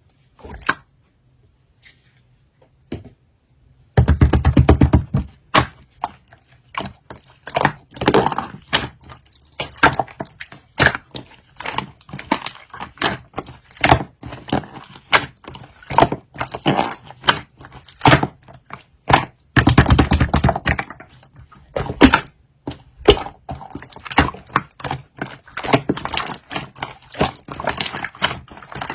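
Purple pearl slime being squished and folded by hand, making rapid sticky clicks and pops. After a few faint clicks it starts in earnest about four seconds in, with heavier squishing near the start of that and again about two-thirds of the way through.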